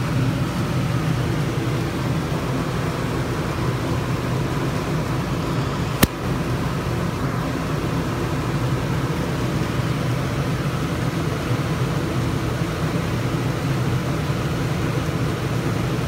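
Dometic 15,000 BTU rooftop air conditioner running steadily, a low hum with fan rush, heard from inside the trailer. A single sharp click about six seconds in.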